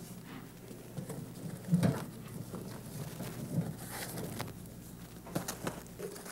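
A foil-wrapped loaf being slid into a wall oven: scattered light knocks and clicks of the loaf and the oven rack being handled, with one louder thud about two seconds in.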